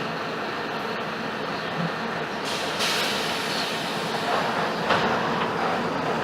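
Mercedes-Benz OF-1721 BlueTec 5 city bus running, with steady diesel engine and rolling noise heard from inside. A short hiss comes about two and a half seconds in.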